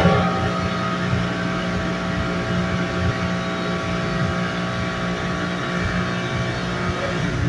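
Steady buzzing in a bathroom: a low hum with several steady higher tones over it, holding an even level with no change.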